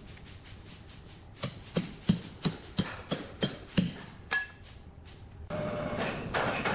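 Repeated sharp strikes, about three a second, of a hand tool chopping or knocking on wood. A little over five seconds in, the sound cuts abruptly to a louder steady noise with the strikes still going.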